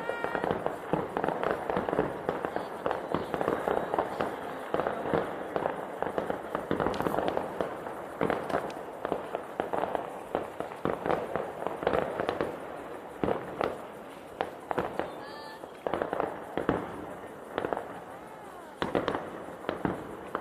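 New Year's fireworks going off in rapid, dense succession: a constant crackle of bangs and pops that thins out somewhat in the second half, with the odd whistle among them.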